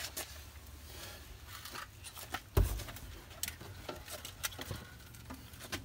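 Small handling sounds of hand wiring work: scattered light clicks and rustles of wire and tools, with one louder thump about two and a half seconds in.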